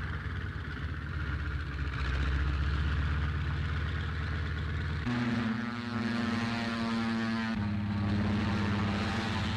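Mustang fighter-bomber's Packard Merlin V12 engine running: a deep, continuous rumble that changes about halfway to a steadier, higher-pitched drone and shifts again near the end.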